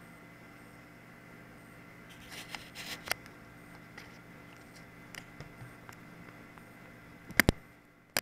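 Quiet room tone with a steady faint hum, with scattered light clicks and rustles starting about two seconds in and two sharp clicks close together near the end, the loudest sounds here.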